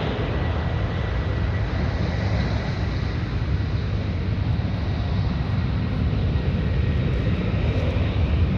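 Boeing 747-400's four jet engines running with a steady deep rumble and hiss, swelling slightly near the end.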